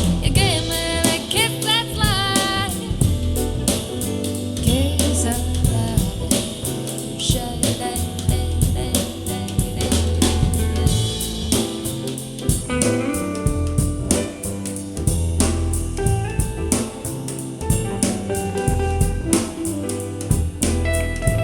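Band music with drum kit, bass and guitar, with a wavering melodic line, singing or a lead instrument, in the first few seconds.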